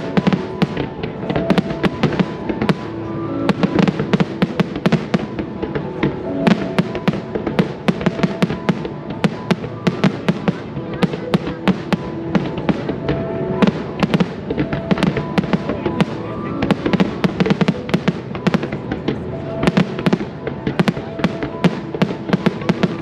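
Aerial fireworks bursting and crackling, with many sharp bangs in quick succession and no pause, over music playing.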